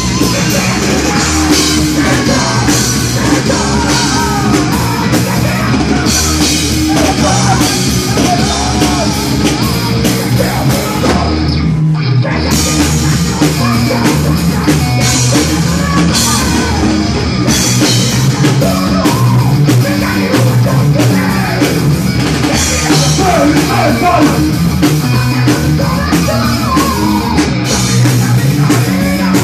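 Heavy metal band playing live: distorted electric guitars, bass and drum kit, with a singer's vocals. The band drops out for a moment about twelve seconds in, then comes back in.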